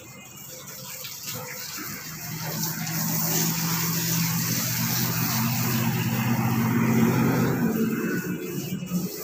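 A motor hums steadily. It starts about two seconds in, grows louder for several seconds and fades near the end.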